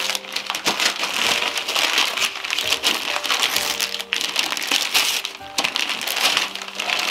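Gift wrapping paper being torn and crumpled as a present is unwrapped, a dense irregular crinkling and ripping, over background music with held notes.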